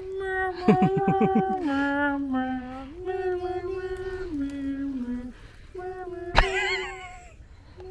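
A slow tune of long held notes, each stepping down and then back up to the starting pitch, twice over. A sharp click with a brief warbling sound cuts in about six and a half seconds in.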